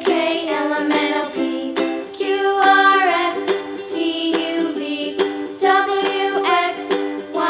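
Background music: a light, upbeat tune with plucked strings like a ukulele over sustained chords.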